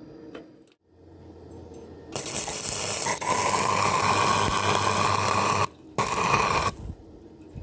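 Stick welding arc on thin square steel tubing: a loud, steady, crackling sizzle that starts suddenly about two seconds in and runs for about three and a half seconds, then breaks off and comes back for a short burst of under a second. A low hum sits under the first part.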